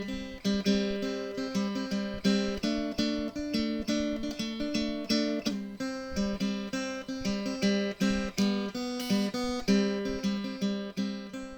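Outro music: acoustic guitar strummed and picked in a steady rhythm.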